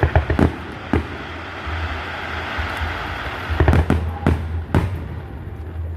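Fireworks going off: a few sharp bangs at the start, a hissing crackle in the middle, then another run of bangs from about three and a half seconds in, over a steady low rumble.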